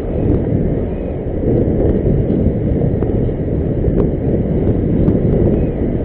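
Wind rushing over the onboard action camera's microphone on an RC plane in flight: a steady, loud, low rumble with a few faint ticks.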